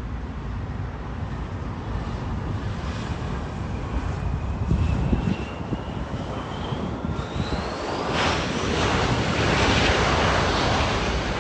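Embraer E175 regional jet's twin jet engines on landing rollout: a low rumble with a thin whine that rises in pitch, then a loud jet roar swelling near the end, typical of the engines spooling up for reverse thrust.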